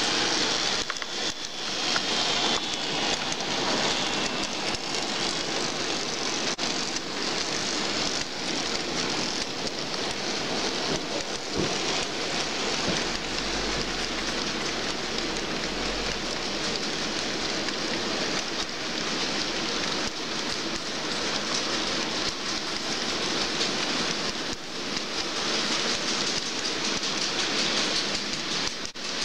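N gauge model trains running over the layout's track: a steady, dense rattle of small metal wheels on the rails and rail joints, with fine clicks through it.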